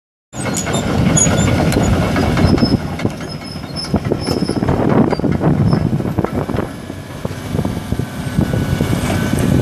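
2006 Volvo EC240BL C excavator travelling on its steel triple-grouser tracks: the track chains clank and rattle, with high squeals, over the steady run of its turbo diesel engine. The sound cuts in suddenly just after the start.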